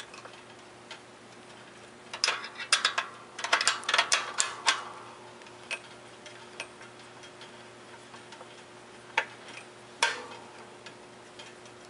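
Wrench working on a bicycle coaster wheel's rear axle nut: sharp metal clicks and clinks, a quick run of them a couple of seconds in, then a few single clicks. This is the nut being tightened to set the wheel after it was pulled back to tension the chain. A faint steady hum lies underneath.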